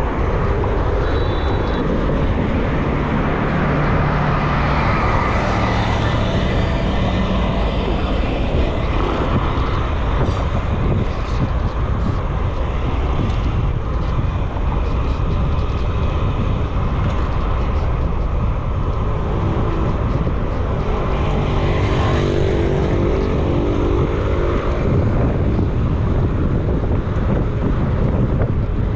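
Wind buffeting the microphone during a ride, a loud, steady rumble. An engine-like hum comes through about three to seven seconds in, and again, stepping up in pitch, about twenty to twenty-five seconds in.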